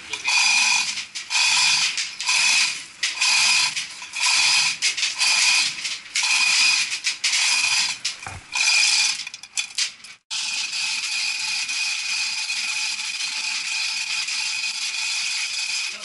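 Manual chain hoist lowering a 300-pound gearbox: the hand chain rattles and the ratchet clicks in repeated bursts, one per pull. After a brief cut about ten seconds in, it becomes one even, unbroken rattle.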